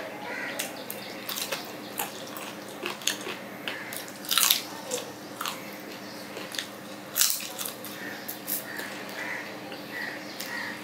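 Close-miked eating sounds: chewing and biting on chicken on the bone, with wet lip smacks and sharp crackling clicks, the loudest about four and a half and seven seconds in.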